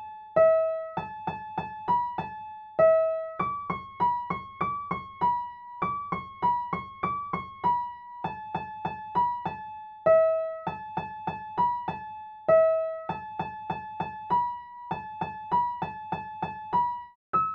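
Solo keyboard with an electric-piano sound playing a simple melody one note at a time, each note struck and fading quickly, in short phrases that repeat.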